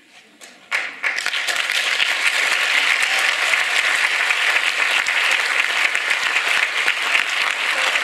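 Audience applauding: a few scattered claps, then dense, steady applause from about a second in.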